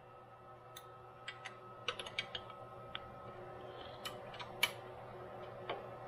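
Sharp metallic clicks and ticks of a hex key working the cap screws of an aluminium stepper-motor mount as they are done up tight, with a cluster of clicks about two seconds in and the loudest click about four and a half seconds in. A faint steady hum runs underneath.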